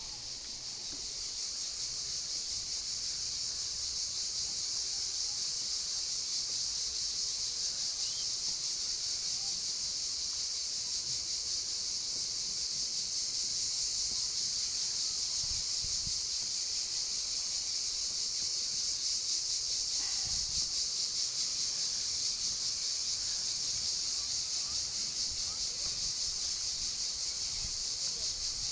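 Cicadas singing in a steady, unbroken chorus: a dense, high-pitched, rapidly pulsing buzz.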